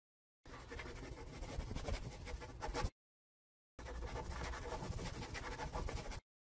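Scratchy marker-on-paper writing sound effect in two stretches of about two and a half seconds each, cut off sharply by dead silence between them.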